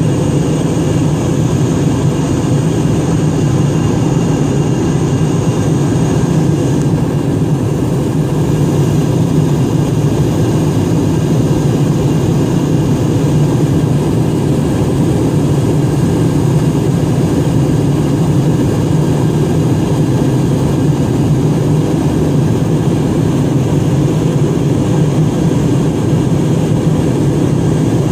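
Steady cabin noise of an airliner in flight: engines and rushing air make an even, loud, low drone with faint steady tones above it.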